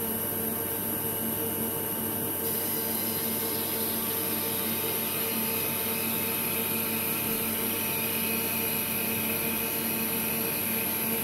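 Brother HS300 wire EDM machine running steadily while the wire cuts through a bar, a steady machine hum with a higher hiss joining about two seconds in.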